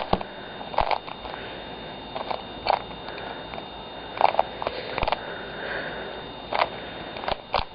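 3x3 Rubik's cube being twisted by hand: about ten short plastic clicks at irregular intervals, over a steady hiss.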